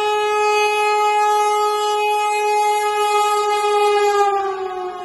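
Vande Bharat Express trainset sounding one long, steady horn blast as it passes close by. Near the end the pitch drops a little and the horn gets quieter as the train goes past.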